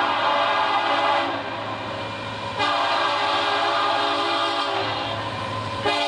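Union Pacific SD70AH freight locomotive's air horn blowing a chord of several notes for a grade crossing as the train approaches: loud at first, easing off after about a second, back to full strength about halfway through, easing again near the end and cutting back in with another blast. A steady diesel engine rumble runs underneath.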